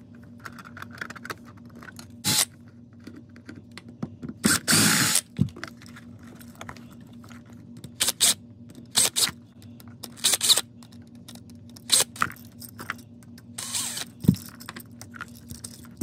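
A cordless drill/driver backing out the terminal screws of an old wall outlet in short bursts, each under a second. Between the bursts there is scraping and clatter as the outlet and its wires are handled.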